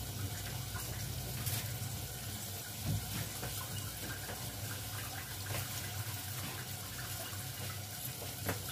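Kitchen tap running steadily into the sink, with a few light knocks.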